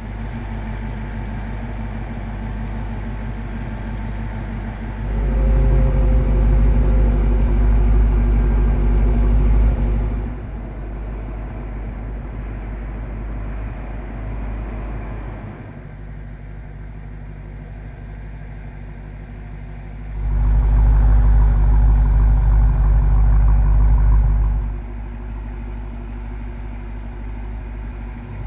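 2015 Dodge Challenger SRT Hellcat's supercharged 6.2-litre V8 running steadily, heard from the driver's seat, and twice getting much louder for about five seconds: once about five seconds in and again about twenty seconds in.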